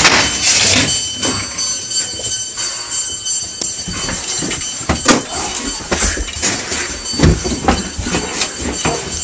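Irregular knocks and thumps with rustling, from people moving and grappling close to the microphone, over a rumbling noise with a faint steady high-pitched tone.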